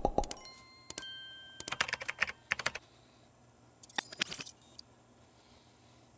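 Light metallic clicks and clinks of a screwdriver being handled at the opened side panel of an air-conditioner condenser unit, in short clusters, with one sharp ringing clink about a second in.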